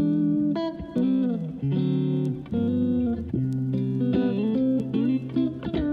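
Background music: plucked guitar playing a melody over lower sustained notes.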